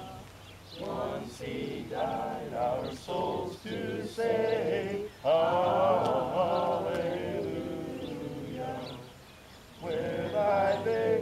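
Many voices of a congregation reciting together in unison, in phrases with short breaks and a longer pause near the end.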